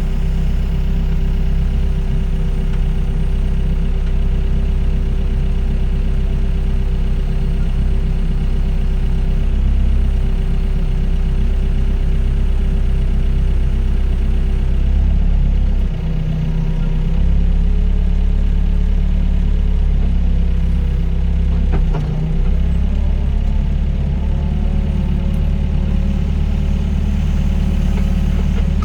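Diesel engine of a Doosan DX55 mini excavator running steadily while it digs and dumps soil, its note shifting slightly as the hydraulics take load, with a brief dip about halfway through and another near the three-quarter mark.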